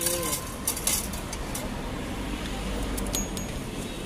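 A metal ice-cream scoop clinking against the steel tubs of a street vendor's ice cart, a few sharp clicks in the first second, over a steady low traffic rumble.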